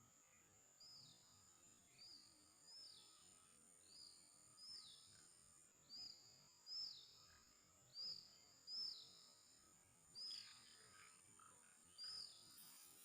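A bird repeating a short, high whistle that slides down in pitch, about once a second, over a steady high-pitched insect drone; all faint.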